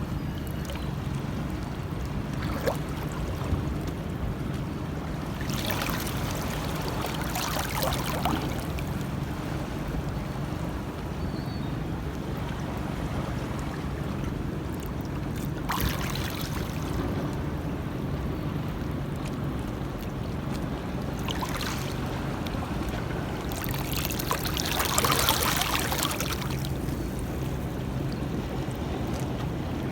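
Sea water lapping and splashing against the harbour edge, coming in several surges, the loudest a little before the end, over a steady low rumble.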